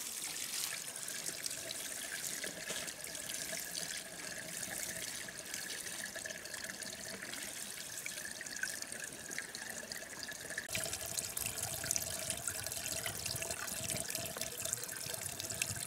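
Water pouring steadily from a pump's outlet, a continuous gushing with a faint steady tone beneath it. The flow turns fuller and deeper about eleven seconds in.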